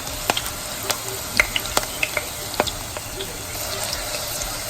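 Egusi (ground melon seed) paste frying in hot palm oil with onions: a steady sizzle broken by sharp crackles, most of them in the first three seconds.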